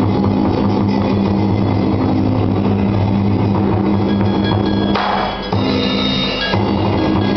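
Traditional Vietnamese water puppet theatre music with drums playing continuously. About five seconds in the low end drops away for a moment and brighter, higher tones stand out before the full sound returns.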